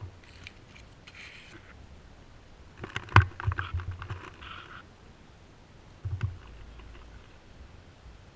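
Scattered knocks and rustling from a player moving with airsoft gear, with a sharp click about three seconds in and a short thump a few seconds later.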